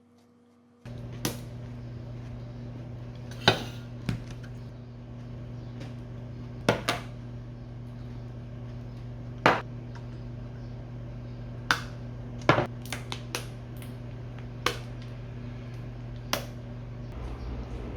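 Dishes and kitchen utensils clinking and knocking, a dozen or so sharp clatters scattered over a steady low machine hum that starts about a second in.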